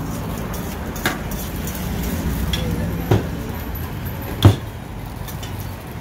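Food-stall background noise with a steady low hum, broken by three sharp clinks of metal utensils on stainless-steel pots, about one, three and four and a half seconds in, the last the loudest.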